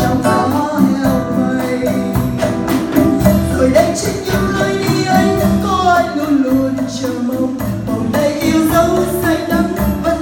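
A woman singing a Vietnamese song into a microphone, backed by a live band with drum kit and keyboard.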